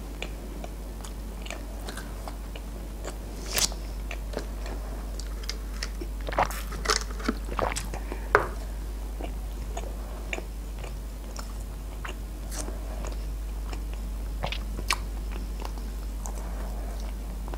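Close-up chewing and crunching of crispy breaded fried chicken strips, irregular crackly bites with the sharpest crunches clustered in the middle, over a steady low hum.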